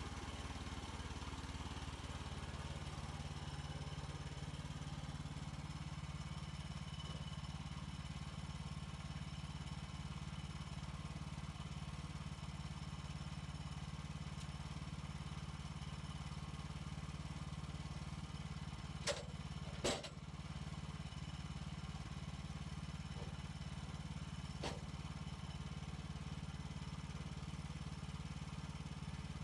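Portable sawmill's gas engine running at a steady speed, with two sharp knocks about two-thirds of the way through and a fainter one a few seconds later.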